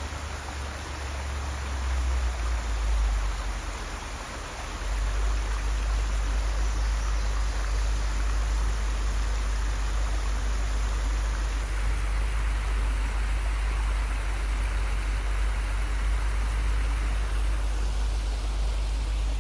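Creek water rushing and splashing in a steady, even wash, with a low rumble underneath that swells about five seconds in.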